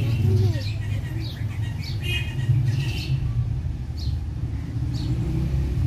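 Small aviary birds chirping in short, scattered calls over a steady low rumble.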